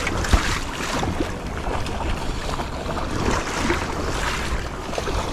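Wind buffeting the microphone over moving water, with splashing from a hooked steelhead thrashing in shallow water at the shoreline. A single sharp click about a third of a second in.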